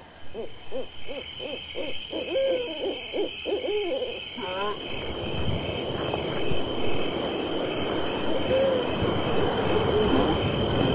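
A quick run of short hooting calls, about four a second, over a steady high-pitched whine. After about four and a half seconds the calls give way to a steady hiss, with only a few faint hoots later on.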